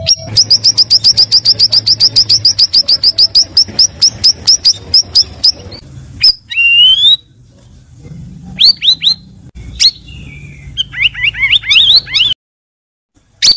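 Cucak rawis songbird singing a fast, even run of sharp high chips, about eight a second, for some five seconds. A single rising whistle follows, then a few scattered notes and a quick burst of rising notes. The song cuts to dead silence for about a second near the end.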